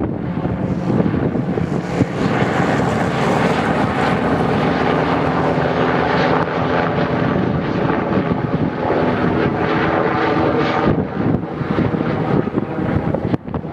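Airbus H225 helicopter running, its twin turboshaft engines and rotor giving a steady whine of several tones over heavy noise. The tones fade out about eleven seconds in, leaving wind on the microphone.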